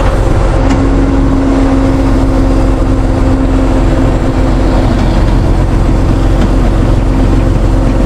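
Tow truck engine running steadily, a continuous low rumble with a steady hum over it.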